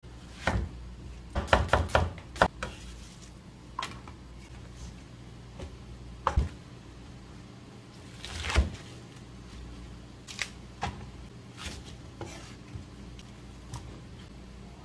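Chef's knife slicing onion and large green onions on a wooden cutting board: irregular knocks of the blade striking the board, a quick run of strokes about one and a half to two and a half seconds in, then single strokes every second or two, with a faint steady low hum underneath.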